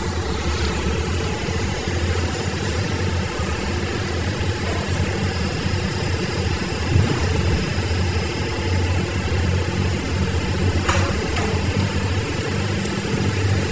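Heavy diesel machinery engine running steadily with an even, low hum.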